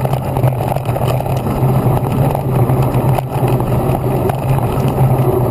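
Riding noise of an electric mountain bike on a dirt track, picked up by a handlebar-mounted action camera: tyres rumbling over the ground and wind rushing over the camera, with a steady low hum underneath.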